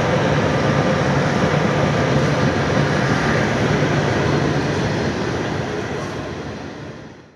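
Freight train of hopper wagons rolling past close by: steel wheels running on the rails, a steady noise that fades away over the last two seconds.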